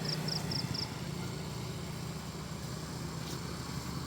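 Vehicle engine idling with a steady low hum, with five short high chirps in the first second.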